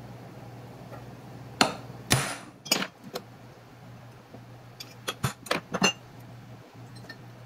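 Sharp metal knocks and clinks from a cold chisel worked against the steel housing of a small brushed DC motor resting on a metal block. The chisel is going at the staked indentations around the housing rim that hold in the brush end bell. There are a few separate knocks in the first three seconds, then a quick run of several clinks near the end as the chisel and motor are handled.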